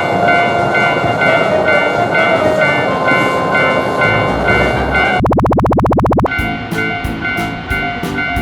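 Japanese railroad crossing bell dinging in a steady, even rhythm over the noise of a passing train. About five seconds in, a rapid buzzing rattle cuts in for a second. Then music with a steady beat starts while the crossing bell keeps dinging.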